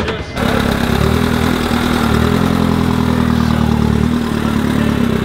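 Motorcycle engine running steadily at a low idle, cutting in abruptly about a third of a second in.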